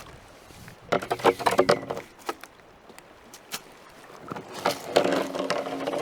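Two bursts of rapid knocks and clatter, about a second in and again near the end, the second with a brief low creak or hum under it.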